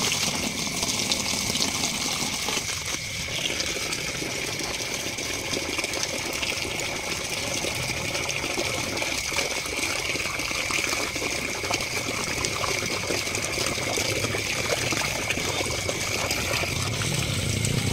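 Water gushing from a hose into a plastic basin of small lòng tong fish, splashing as hands stir and rinse them in clean water. A steady high whine sits underneath.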